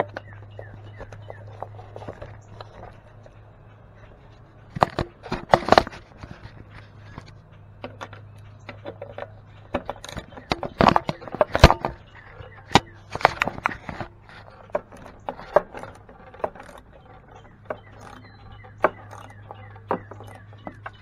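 Irregular clicks, knocks and scrapes of hand tools and small parts being handled on a backpack blower's engine housing and wiring, over a steady low hum.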